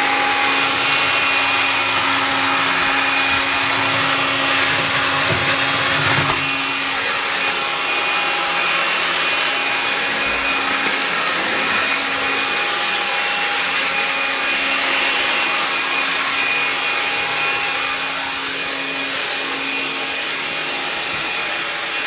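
AEG CX7-1-30EB cordless stick vacuum running steadily: a motor whine over a rushing hiss, with its motorised brush head working the floor. A low rumbling under it stops about six seconds in, and the sound gets slightly quieter there and again near the end.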